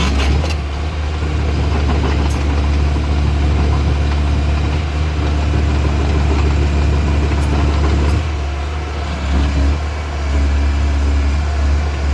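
Komatsu PC130 excavator's diesel engine running steadily with a deep hum, its level dipping briefly about eight seconds in and again near ten seconds.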